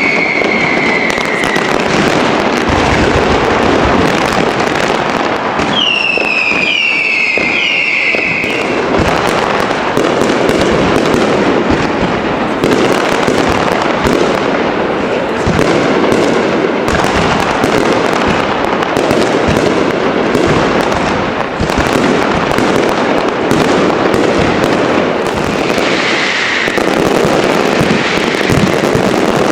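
Fireworks going off in a dense, continuous barrage of crackling and bangs. Whistling fireworks glide down in pitch at the start, again about six seconds in, and once more near the end.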